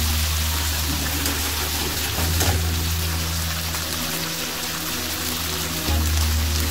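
Large prawns in garlic oil and white wine sizzling in a frying pan, a steady crackling hiss as the wine bubbles off. Background music with a low bass line plays underneath.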